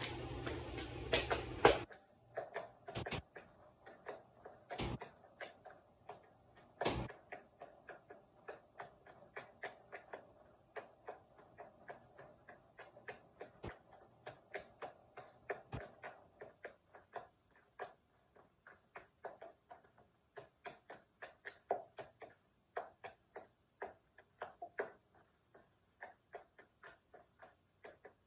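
Tap-dance footwork on a hardwood floor: a long run of sharp clicks and taps, roughly two to four a second in an uneven rhythm, some struck harder than others. A steady rushing noise stops suddenly about two seconds in, with the loudest knock just as it ends.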